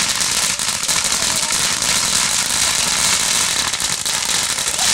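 Ground fountain firework spraying sparks with a loud, steady hiss and fine crackling.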